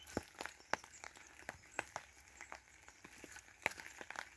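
Faint footsteps crunching and crackling on the ground, irregular clicks a few times a second, as the person filming walks.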